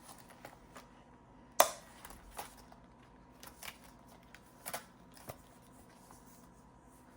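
Paper cash and plastic binder pockets being handled: scattered light rustles and small clicks, with one sharper click about a second and a half in.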